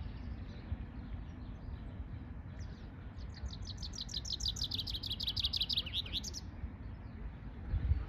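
A small songbird sings one rapid trill, a quick run of many short high notes lasting about three and a half seconds, starting a little over two seconds in. A steady low rumble runs underneath, with a thump near the end.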